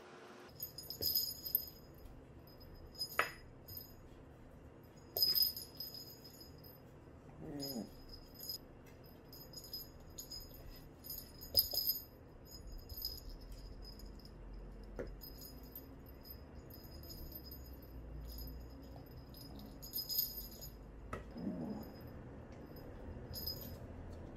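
A small bell jingling in short bright bursts again and again as a small dog plays, with a few light knocks in between.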